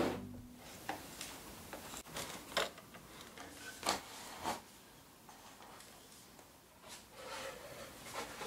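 Wooden crates and a bamboo shelf being handled and set down: a scattering of light knocks and taps, the clearest in the first half, with a softer scuff of wood later on.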